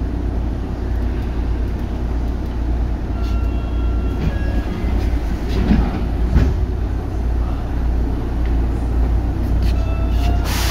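Tokyu 8500 series train with Hitachi traction motors running through a subway tunnel: a steady rumble of wheels on rail and motors. Faint short whining tones rise over it a few seconds in and again near the end.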